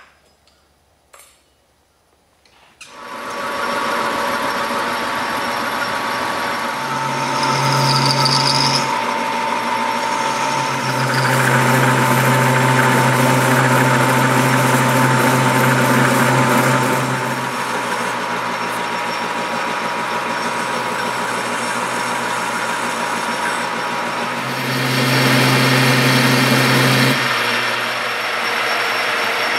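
A couple of clicks, then about three seconds in a metal lathe starts and runs with a steady motor and gear whine and a low hum, growing louder in stretches while a carbide tool turns a metal bar.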